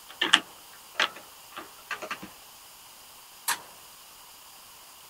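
Short clicks and light knocks of small metal and plastic parts being handled and fitted: an angle grinder's flange ring and nut going onto the spindle inside a plastic blower housing. About six clicks in the first two and a half seconds, then one sharper click about a second later.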